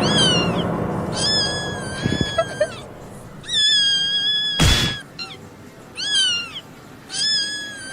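High-pitched cat meows repeated, short falling calls alternating with long held ones, with a sharp click about halfway through.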